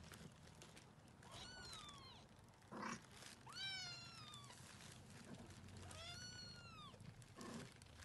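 Nursing kittens mewing faintly: three thin, high-pitched mews, each rising a little and then falling away, with a couple of soft rustles between them.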